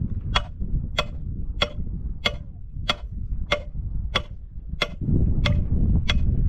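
Steady clock-like ticking, about one and a half ticks a second, each tick identical, over a low rumble that grows louder about five seconds in.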